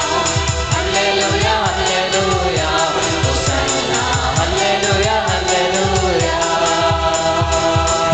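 Worship team of women and men singing a gospel song together over keyboard accompaniment and a quick, steady beat.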